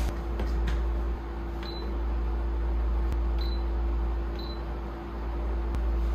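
Circulator fan's control panel beeping: three short high beeps as its buttons are pressed to switch it on and set it, with a few light handling clicks, over a steady low hum.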